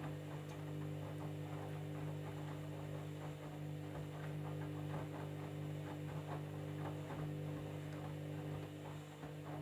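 Candy washing machine running on its jeans cycle: a steady electric hum with faint, irregular ticking over it.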